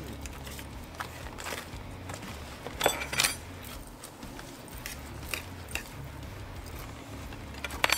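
Forks clicking and scraping against metal serving trays of chili cheese fries during eating, in scattered short clinks over a low room hum. A louder clatter comes about three seconds in and another near the end.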